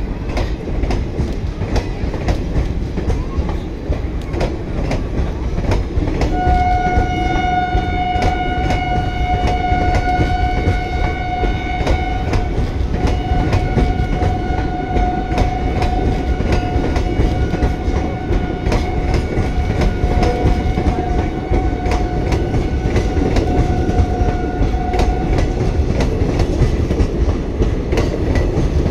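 Passenger coaches of the Kashi Vishwanath Express rolling past: a steady rumble with the rapid clickety-clack of wheels over rail joints. From about six seconds in a long, steady horn note sounds over it, breaks off briefly about halfway through, and stops near the end.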